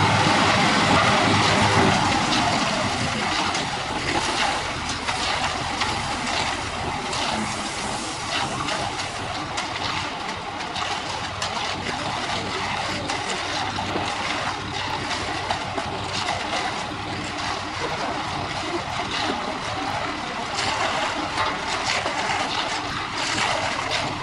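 Concrete mixer truck's engine running, with a steady rushing, splashing noise like wet concrete sloshing and pouring. The engine note is strongest in the first couple of seconds, then the rushing noise dominates, with scattered clicks.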